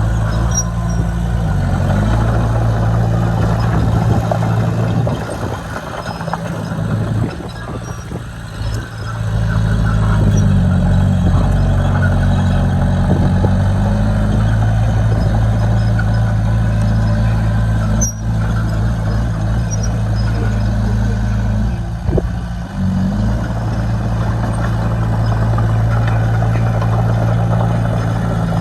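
Heavy diesel engine of earthmoving machinery running steadily. It eases off and goes quieter for several seconds about a third of the way in, then picks up again, with another brief dip later. A single sharp click comes about two-thirds of the way through.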